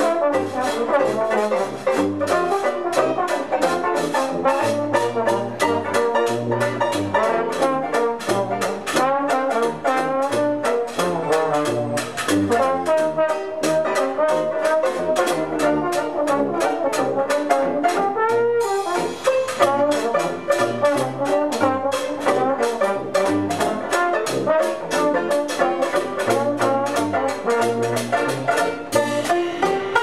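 Brass-led jazz music with a steady beat and a moving bass line.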